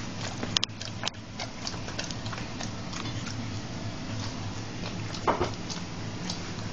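Bull terrier smacking its lips and licking a sticky mouthful of peanut butter: an irregular string of wet clicks and smacks. The sharpest come about half a second in, about a second in and just past five seconds.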